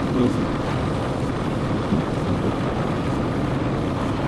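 Motorcycle engine running steadily at highway cruising speed, mixed with wind rushing over the microphone.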